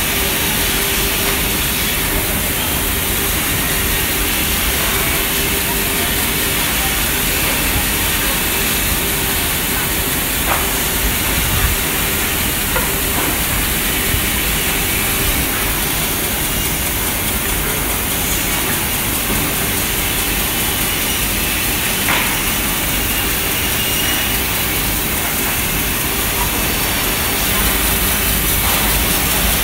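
Woodmaster WM-B2500 CNC curve-cutting saw running, its narrow blade cutting through a stack of glued pine boards: a steady hiss with a faint steady hum, and a few brief clicks.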